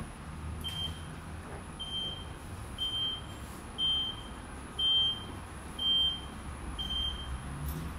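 Power tailgate's warning buzzer beeping about once a second, eight short high beeps of one pitch, as the tailgate moves after a kick-sensor activation. A steady low hum runs underneath.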